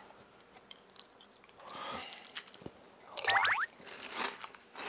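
Someone eating corn-flake cereal in milk with a spoon: wet munching and crunching with small clicks of the spoon against the bowl. A short, louder squeaky sound comes about three seconds in.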